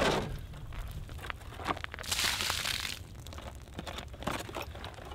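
Thin plastic food container being handled, crinkling and creaking with scattered small knocks, and a short splash of rinse water tipped out of it about two seconds in.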